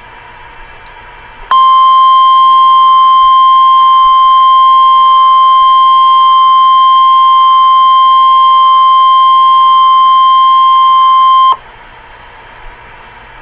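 Emergency Alert System weather radio alert tone: one long, steady, loud high tone of about ten seconds over faint static. It starts suddenly about a second and a half in and cuts off sharply, signalling that a warning message follows.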